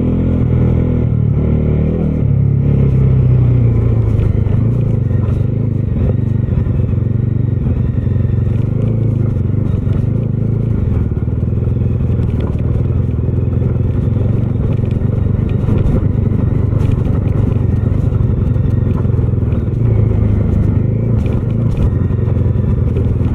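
Bajaj Dominar 250's single-cylinder engine running while the motorcycle is ridden along, with wind and road noise. The engine note is clearest in the first couple of seconds and then holds steady.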